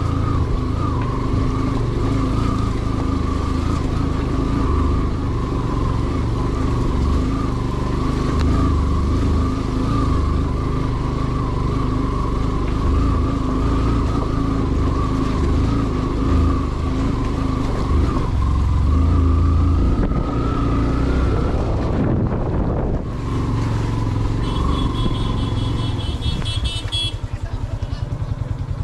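A motor vehicle's engine running steadily while on the move, with the engine note falling and dipping briefly about three quarters of the way through.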